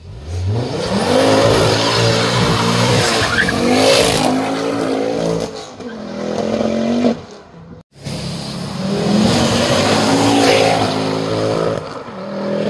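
Mk2 Ford Focus RS's turbocharged five-cylinder engine revving hard as the car pulls away and accelerates, the pitch climbing, dropping at a gear change and climbing again. The sound breaks off abruptly for an instant about eight seconds in and resumes with more hard acceleration.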